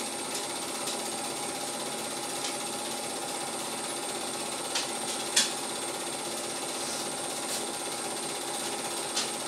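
Cine film projector running: a steady mechanical whirr and clatter, with a few sharp clicks, the loudest about five and a half seconds in.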